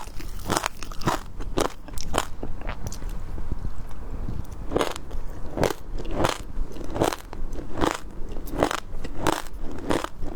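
Close-miked eating sounds: crisp bites and crunching chews of seafood, coming in sharp strokes about every half-second, with a quieter stretch of softer chewing about a third of the way in.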